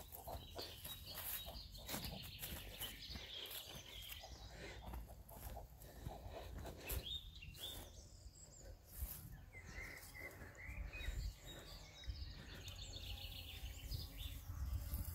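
Footsteps and rustling through long grass, with scattered bird chirps in the background.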